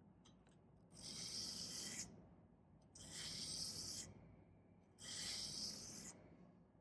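Broadhead blade drawn flat across a diamond sharpening stone, three slow scraping strokes about two seconds apart.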